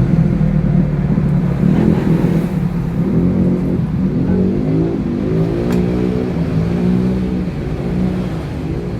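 A motor vehicle engine running, its pitch rising and falling several times as it speeds up and slows down.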